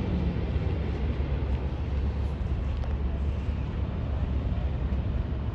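Steady low rumble of vehicle engines and traffic, with no clear single event.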